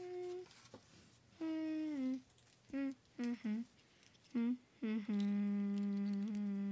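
A person humming with the mouth closed: several short 'mm' sounds, some sliding down in pitch, then one long steady hum from about five seconds in, a pretend 'mmm' of eating while feeding a teddy bear toy food.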